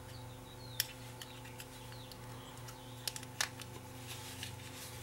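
Small sharp clicks of fingers and tools handling the opened plastic pendant and its circuit board, one about a second in and two close together around three seconds in, over a steady low hum.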